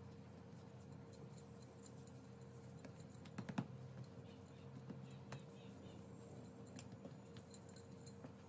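Near silence: a faint steady hum with a few soft taps, the loudest about three and a half seconds in, from hands kneading a ball of dough on a floured countertop.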